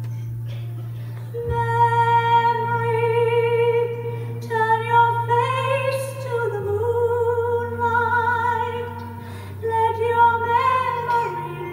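Background music: a woman's voice sings long held notes with vibrato, sliding between pitches, over a low steady sustained chord. The voice comes in about a second and a half in and dips briefly around three quarters of the way through.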